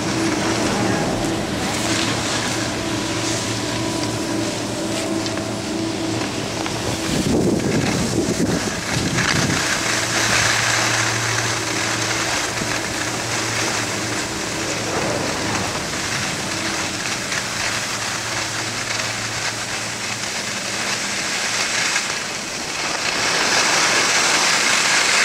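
Skis hissing and scraping over packed snow on a downhill run. Wind buffets the microphone in a low rumble about seven seconds in, and a faint steady low hum runs underneath.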